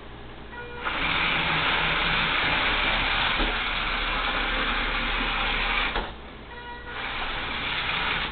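Roomba robot vacuum running its motors while being driven in short bursts: a steady whirring hiss starts about a second in, stops for about a second near six seconds, then starts again.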